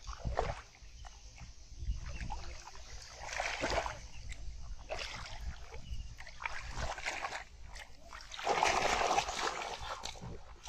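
Muddy paddy water splashing and sloshing as a person churns through it by hand, feeling for fish, in uneven surges; the loudest splashing comes near the end.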